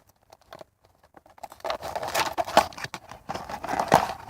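Crinkling and rustling of plastic packaging being handled. It starts about a second and a half in, as a dense run of crackles and clicks, and keeps on until near the end.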